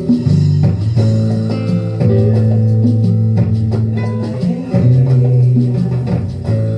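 Background music with guitar, bass and a steady beat: the cool-down song.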